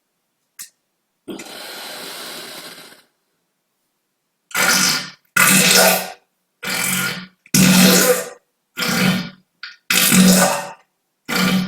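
A series of about seven loud human farts, each half a second to a second long with a low buzzing pitch, cut one after another with silence between. They are preceded by a quieter hissing stretch of about two seconds.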